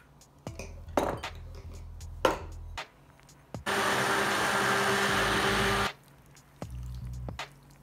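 Electric stick blender running for about two seconds in a glass bowl, whipping egg whites into a batter, starting and stopping abruptly. Before it come a few sharp knocks of utensils on the bowl.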